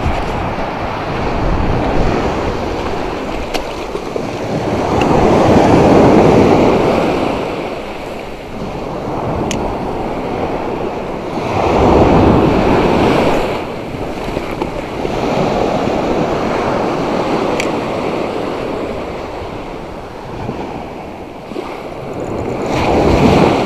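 Surf breaking on a sandy shore: a continuous wash of water noise that swells loud with each incoming wave, about every five or six seconds.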